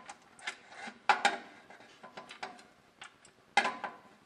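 Metal transmission oil pan, its bolts already pushed through the new gasket, knocking and scraping against the transmission case as it is pushed up and shifted to line up the bolt holes. There are a few sharp metallic clicks and clanks, the loudest about a second in and again near the end.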